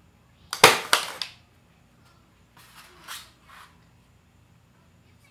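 Milwaukee M12 cordless 23-gauge pin nailer firing: a sharp snap about half a second in, followed by two quicker clacks. Fainter short noises come a couple of seconds later.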